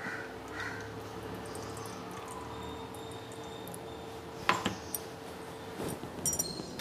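Stainless-steel kitchenware clinking lightly, once about two-thirds in and a few quick times near the end, as a steel cup and mixer jar are handled beside a steel strainer and bowl. Between the clinks, a faint wet trickle of ground pearl millet batter straining through the mesh over a steady low hum.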